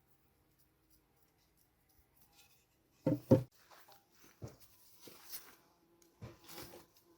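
Two sharp knocks in quick succession about three seconds in, then scattered light clicks and scrapes of objects being handled.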